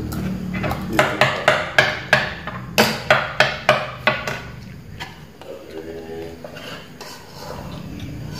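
Spoons tapping and scraping against bowls while eating: a fast run of sharp clinks lasting about three seconds, then quieter.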